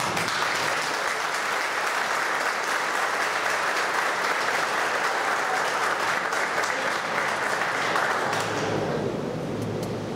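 Audience applauding, which fades out near the end.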